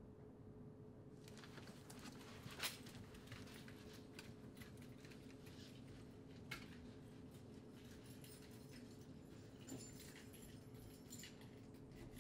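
Near silence: hallway room tone with a faint steady hum, and from about a second in, faint scattered clicks and taps, two of them a little more distinct.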